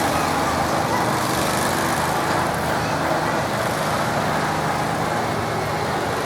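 Farm tractor engine running steadily, a low even drone with a broad hiss over it.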